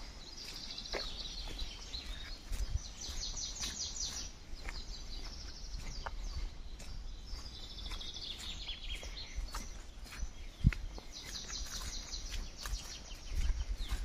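Songbirds singing in the woodland, several trilled phrases of quick repeated notes, one of them falling in pitch. Underneath are footsteps on a dirt path, with soft scuffs and thuds that grow heavier near the end.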